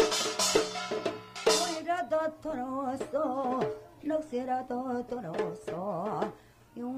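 Korean East Coast shaman ritual music: small gongs and cymbals crash together over the janggu hourglass drum for about the first two seconds. Then the percussion falls back and the shaman's voice carries a slow, wavering melody with heavy vibrato over light janggu strokes, pausing briefly near the end.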